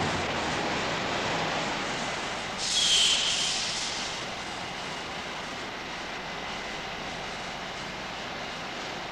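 Steady rushing noise of oil-well machinery running. A short, louder hiss with a thin high whistle comes about three seconds in.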